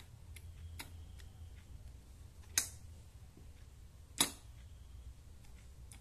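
Two sharp clicks about a second and a half apart, with faint ticking around them, as a 9-volt battery's clip is connected to a 12-volt solenoid door lock. The battery is too weak and nearly flat to drive the lock properly.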